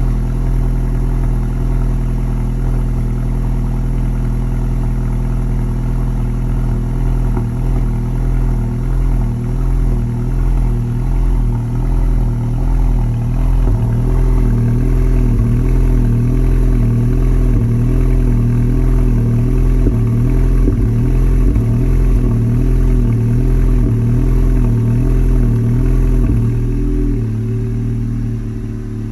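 Idle of a 2019 Volkswagen Jetta GLI's turbocharged 2.0-litre four-cylinder, heard through an aftermarket cat-back exhaust and downpipe. From about seven seconds in, the idle surges up and down in a steady rhythm, about once a second, like the engine revving up and down on its own: a rough, hunting idle that appears as the engine nears full warm-up. Near the end the surging stops and the engine drops to a lower, steadier note.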